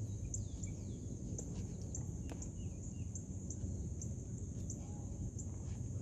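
Outdoor ambience: a steady high insect-like trill with a sharper chirp repeating about twice a second, a few faint bird chirps, and a steady low rumble underneath.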